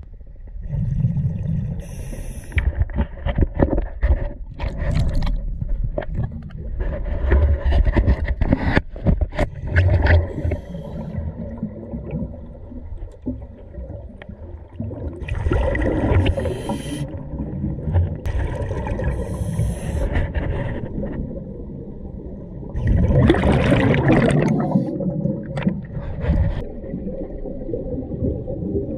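Underwater scuba breathing heard through a camera's waterproof housing: rushes of regulator breath and exhaled bubbles come every few seconds, the loudest about three quarters of the way through, over a low rumble. Short knocks and scrapes of the housing being handled fill the first third.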